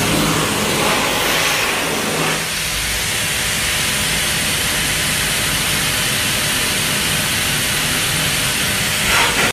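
Steady, loud rushing hiss of a pet grooming blow dryer, with a low hum under it for the first couple of seconds.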